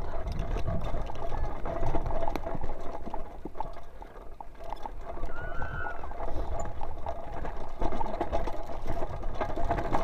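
Mountain bike rattling and clattering over a rough, bumpy dirt single-track at speed, with wind rumbling on the microphone. A brief high squeal rises and falls about halfway through.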